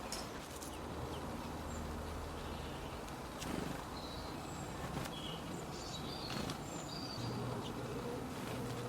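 Low buzzing hum of a flying insect close to the microphone, heard for a couple of seconds early on and again starting a little before the end. Short, high chirps from small birds are scattered throughout, with a few light clicks.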